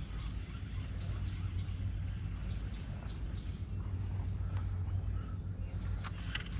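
Birds giving short, scattered chirps over a steady low rumble, with a few faint clicks near the end.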